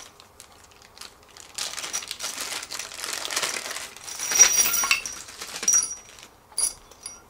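Small plastic bag of metal hardware crinkling as it is opened and handled, the bolts inside jingling, loudest about four to five seconds in. Near the end a few short clinks as the bolts are tipped out.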